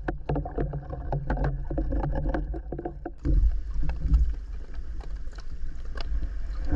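Water sloshing and rumbling as heard through an underwater action camera, with many sharp clicks and knocks from spearfishing gear being handled. The sound changes character about three seconds in.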